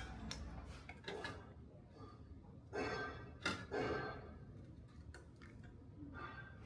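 A few short scraping strokes over a low steady hum, the two loudest close together a little before the middle.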